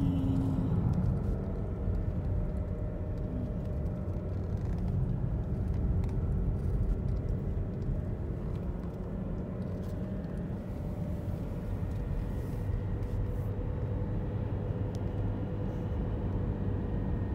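Car driving down a winding road, heard from inside: a steady low rumble of road and wind noise.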